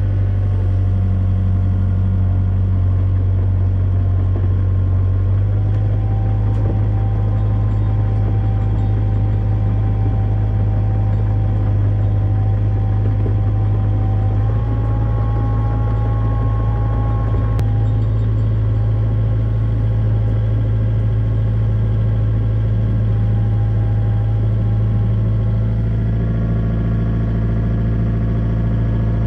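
Excavator engine running steadily, heard from the cab, with a steady whine above it that shifts pitch slightly a few times as the machine is worked.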